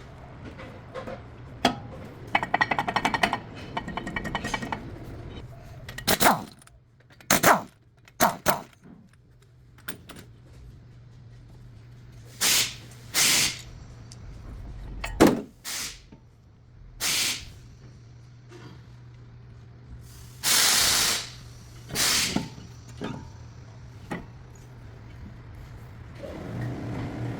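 Hand work on a vehicle's front brakes: a fast clicking rattle for about two seconds, then a string of short, loud hissing bursts and a sharp knock, over a steady low hum.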